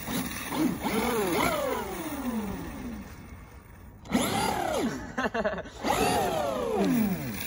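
Electric RC monster truck's motor whining in several throttle bursts, each rising and then falling in pitch, as its wheels spin in deep snow without getting the truck free.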